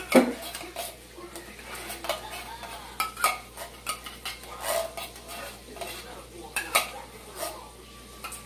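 Metal utensil scraping and clinking against a can of condensed cream of chicken soup and a foil pan as the thick soup is worked out of the can, in irregular scrapes and clicks.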